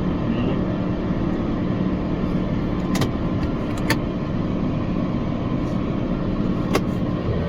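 Tractor engine running steadily under way, with three sharp knocks or rattles a few seconds apart.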